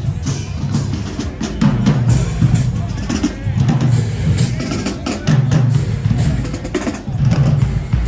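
High school marching band playing, with the drumline's snare drums and bass drums prominent in a steady beat.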